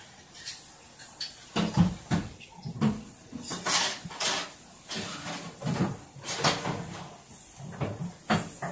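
Irregular knocks and clatter of kitchen cupboard doors and dishes being handled at the counter, with a couple of short rushing sounds about four seconds in.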